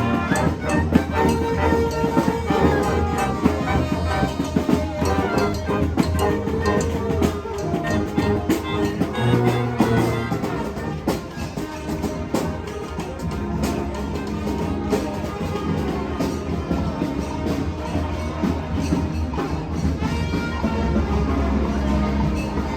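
Street brass band playing, horns over drums.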